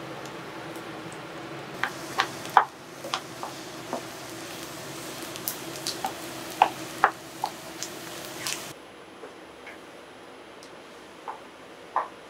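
Kitchen utensils clicking and tapping against a pan and bowl while cooking, scattered irregular taps over a steady background hum that cuts off abruptly about nine seconds in.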